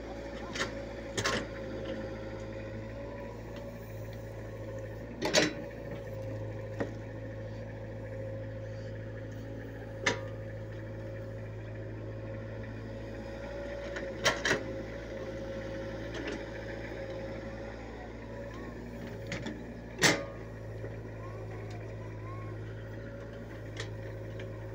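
Steady drone of the tracked excavator's diesel engine working its hydraulics while loading soil into a tractor trolley. Several sharp knocks come from the bucket and dumped soil striking the trolley, the loudest about five seconds in and again about twenty seconds in.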